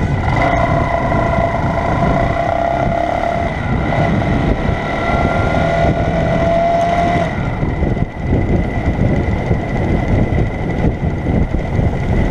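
Lifan Chopper 150 motorcycle's 150cc engine running while riding, heard together with heavy wind and road noise on the bike-mounted microphone. The engine note climbs gently for about the first seven seconds, then drops back into the noise.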